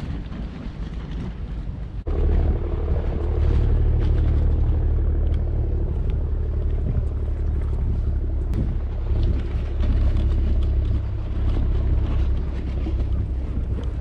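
Wind buffeting the microphone: a steady low rumble that gets suddenly louder about two seconds in and stays strong.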